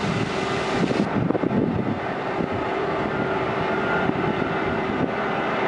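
Compaction machine running steadily as it compacts gravel: a constant engine drone with a steady hum and a fine rattling.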